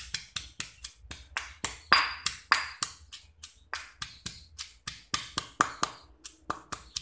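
Stone pestle pounding chopped shallots, lemongrass, turmeric and chillies in a granite mortar: steady sharp knocks, about four to five a second.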